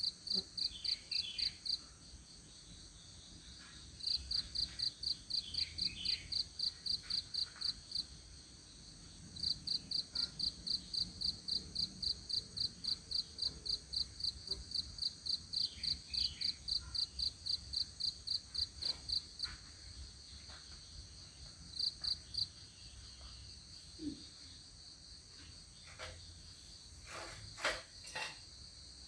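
Insects chirping in an even pulse of about five chirps a second, in bouts that stop and start again, over a steady high buzz of other insects. A few sharp clicks come near the end.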